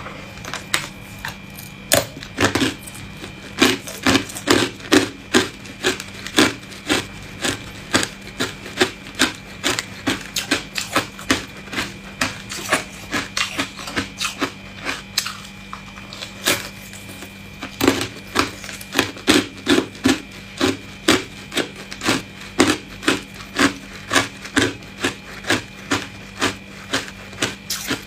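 Hard clear ice cubes bitten and crunched between the teeth: a steady run of sharp crunches, about two or three a second.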